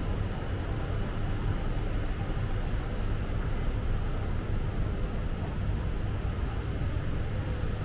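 Steady city street noise: a continuous low traffic rumble with an even hiss over it.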